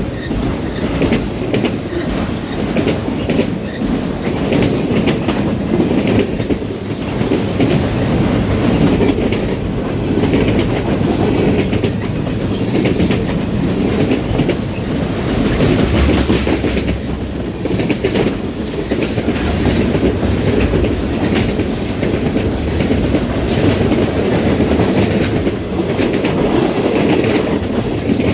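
Canadian National freight train rolling past at close range, its wheels clicking over the rail joints in a continuous clatter.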